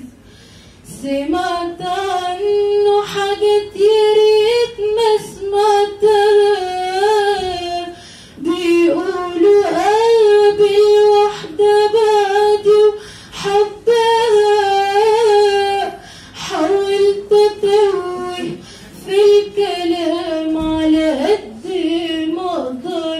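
A teenage girl singing solo without accompaniment into a handheld microphone, in long phrases with wavering, ornamented pitch and short breath pauses between them.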